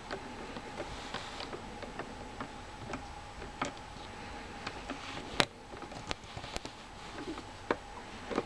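Scattered small metallic clicks and taps from a lock and lock-pick tool being handled, irregular, with one sharper click a little past halfway, over a faint steady hum.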